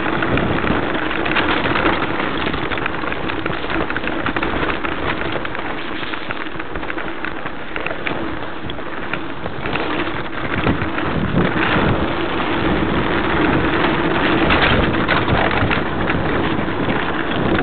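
Mountain bike descending a gravel forest trail at speed: tyres crunching over grit and stones and the bike rattling over bumps, with wind rushing over the microphone.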